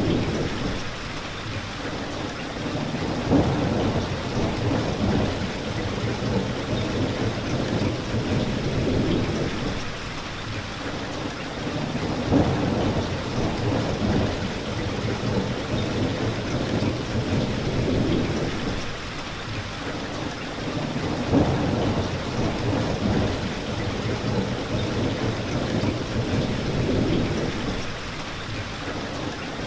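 Steady heavy rain falling on a window pane, with several low, rolling thunder rumbles that swell and fade.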